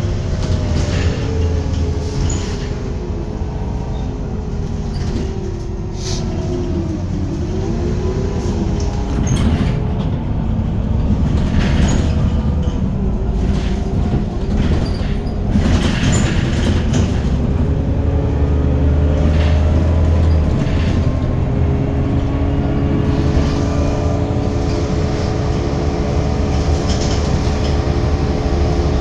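Irisbus Citelis 10 city bus driving: engine and transmission whine falling and rising in pitch as it shifts and changes speed during the first part, then holding steadier, over a low rumble. Scattered clunks and rattles run through it.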